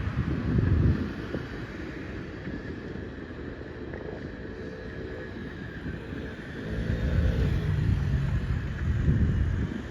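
A train passing on the line: a steady low rumble of wheels on rails, growing louder with a low pitched hum from about six and a half seconds in, likely the EF64 electric locomotive hauling new E235 series cars. Wind buffets the microphone throughout.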